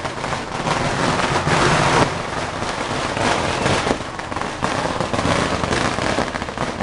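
A string of firecrackers going off in a dense, continuous crackle of rapid bangs.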